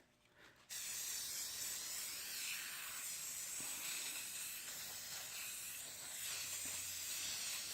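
Aerosol can of spray primer spraying in one continuous steady hiss, starting suddenly under a second in.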